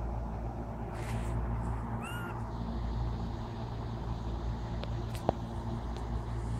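A kitten gives one short, high mew about two seconds in, over a steady low hum. A sharp click comes a little after five seconds.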